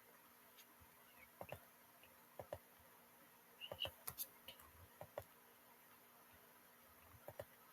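Near silence: room tone with faint, scattered clicks, several of them in quick pairs.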